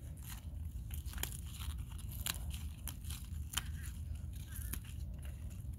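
Spinach leaves being pinched and snapped off by hand: a scatter of crisp snaps, crunches and leaf rustling over a steady low rumble.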